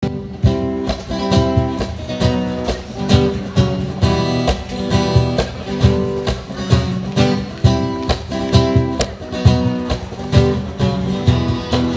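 Acoustic guitar strummed in a steady rhythm, an instrumental passage of chords.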